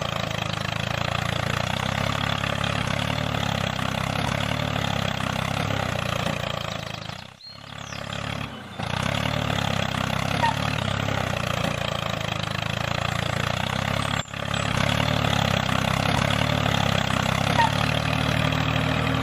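Tractor engine running steadily at idle. The sound drops out briefly about seven and a half seconds in, and again for an instant about fourteen seconds in.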